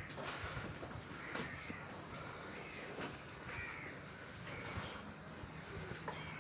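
Crows cawing several times, short calls spaced a second or so apart, over the scattered crunching and tearing of buffalo grazing on grass.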